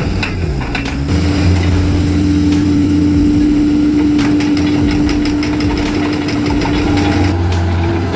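Excavator engine running steadily, with a strong steady whine held over it from about a second in until near the end.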